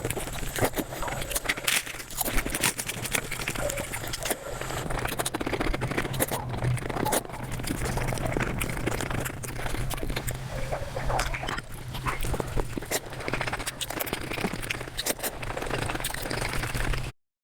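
Close-miked eating sounds played back at about five times speed: a fast, dense stream of chewing, smacking and crackling mouth noises over a steady low hum. They break off in a brief cut to silence near the end.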